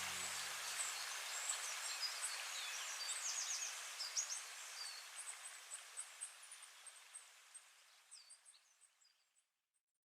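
Small birds chirping and calling with short quick notes over a steady outdoor hiss, the whole ambience fading out to silence about nine seconds in.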